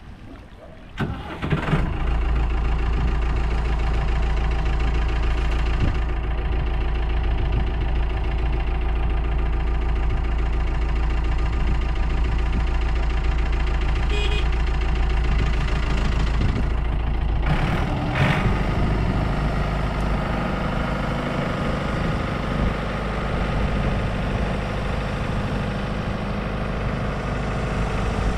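Lifeboat launch tractor's diesel engine starting about a second in and then running steadily. Its sound changes about 18 seconds in as the tractor moves the trailer.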